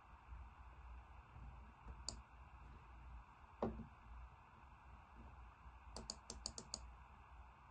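Faint clicks of a computer mouse: one click about two seconds in, a louder one a moment later, then a quick run of about six clicks near the end, over a low steady hum.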